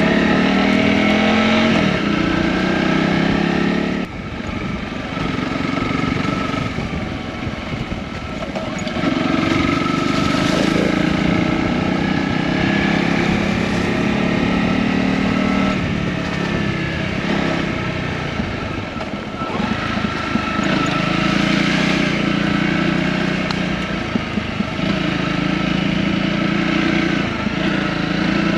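Honda CRF250 trail bike's single-cylinder engine pulling along a dirt forest road, the throttle easing off and opening again several times, with drops in engine note about four seconds in and between about sixteen and twenty seconds.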